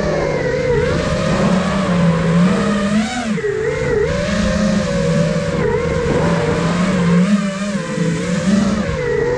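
Five-inch FPV quadcopter (iFlight Nazgul Evoque F5) with its brushless motors and propellers whining, the pitch rising and falling over and over with the throttle. Wind rush on the onboard camera's microphone runs under it.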